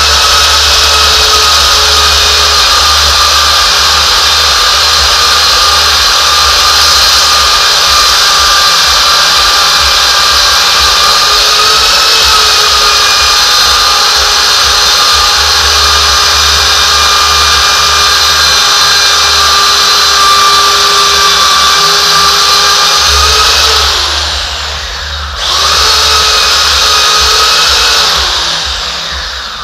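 Handheld belt sander running against the wooden stem of a skin-on-frame canoe, a loud steady motor whine with belt-on-wood noise. About three-quarters of the way through it spins down and starts up again, then winds down near the end.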